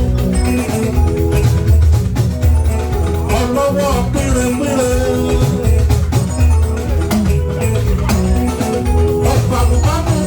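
Upbeat praise music with a steady beat: bass, drums and shakers under a melody.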